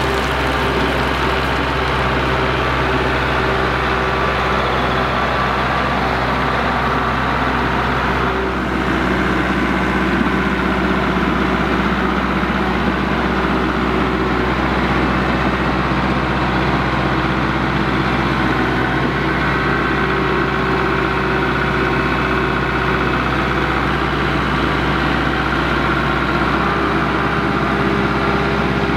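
Kubota MX5400 tractor's diesel engine running steadily at a constant speed while working. Near the start, loose soil pours off the front-loader bucket onto a pile.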